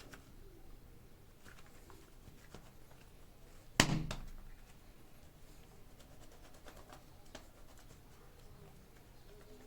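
Clay unboxing handling: faint clicks and rustles, and one hard thunk about four seconds in that dies away over about a second.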